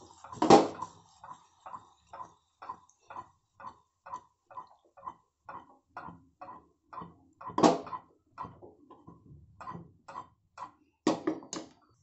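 A spatula scraping and tapping against a non-stick pan as cooked rice is stirred and tossed with vegetables. The strokes come in a steady rhythm of about two a second, with a few louder knocks about half a second in, near the middle and twice near the end.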